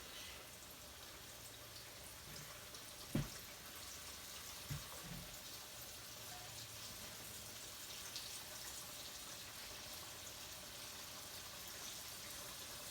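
Floured chicken strips frying in hot grease in a cast iron skillet: a steady sizzle, with a sharp knock about three seconds in and a softer one a little later.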